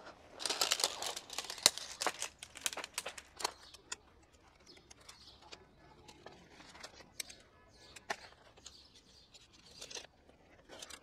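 A plastic-coated groundsheet rustles as it is spread and smoothed on grass, followed by a run of sharp clicks and clacks from metal tent poles being handled. Sparse lighter clicks follow.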